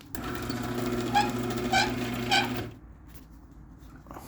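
A 1996 Liftmaster 1/3-horsepower chain-drive garage door opener running for about two and a half seconds, then stopping, with three short squeals evenly spaced about half a second apart. The owner believes the squeal comes from the sprocket turning in a warped coupler of the gear and sprocket assembly, damaged by running a heavy door.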